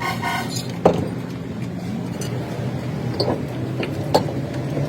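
Workshop sounds: a steady low mechanical hum with a few sharp knocks or taps on metal, the loudest about a second in.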